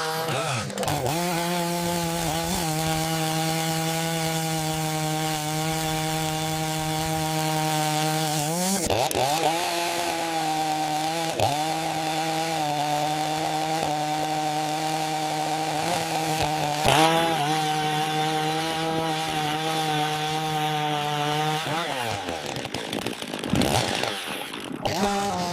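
Chainsaw running and cutting wood, holding a steady pitch. Its pitch briefly drops and climbs back a few times, and it wavers near the end.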